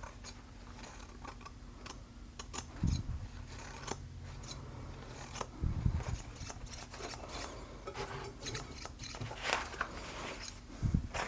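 Freshly sharpened Geib curved grooming shear opening and closing in repeated short snips as its cut is tested, with a few low handling thumps.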